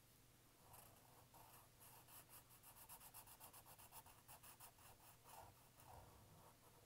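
Black felt-tip marker scribbling quickly back and forth on paper to fill a small circle in solid black: faint, with a fast run of short strokes, several a second, thickest in the middle.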